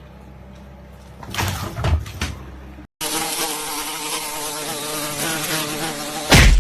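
A loud, steady buzz lasts about three seconds and ends in a sharp thump near the end. Before it there is a low hum and a few knocks.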